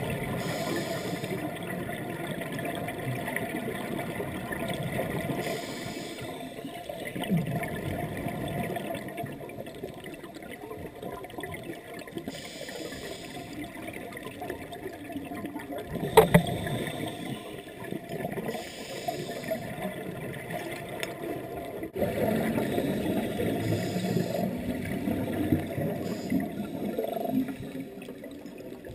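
Underwater sound through a camera housing: a low water rumble, with a scuba regulator's breaths hissing every several seconds and bubbles burbling. There is one sharp click about halfway through.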